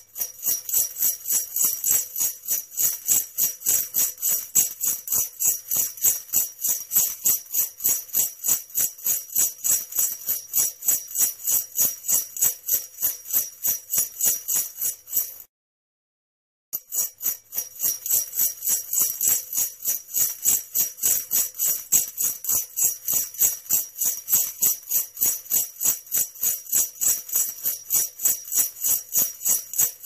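Sleigh bells jingling in a steady, even rhythm, like bells on a trotting reindeer harness. They stop for about a second near the middle, then start again in the same rhythm.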